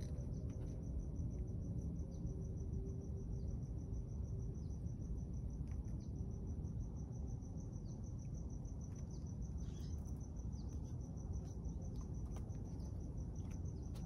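A cricket chirping steadily: a high, evenly pulsed trill, heard over a low rumble.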